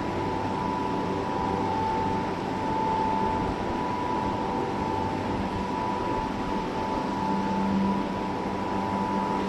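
39 m concrete pump machine running steadily: constant machine noise with a steady high whine and a low hum over it.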